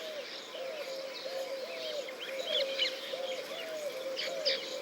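Birds calling: a low, arched note repeated about twice a second, with brief bursts of higher chirping twice, about halfway through and near the end.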